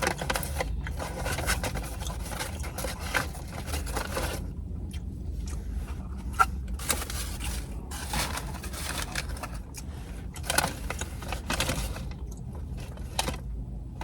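Fast-food paper wrapper rustling and crinkling in several bursts, over a low steady rumble.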